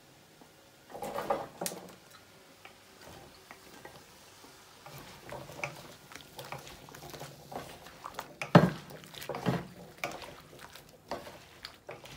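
Cubed pumpkin tipped from a plate into a wok and pushed off with a wooden spoon, then stirred with spatulas: scattered knocks and scrapes of the utensils against the pan, the loudest knock a little past the middle.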